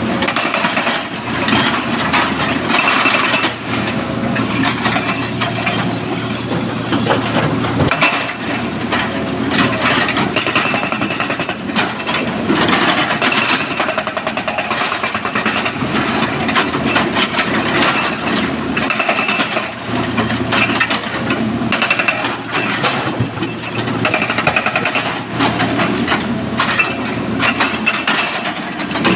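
SANY SY225 excavator's diesel engine working under load while stone clatters and crashes continuously as the bucket scoops and dumps quarry rock.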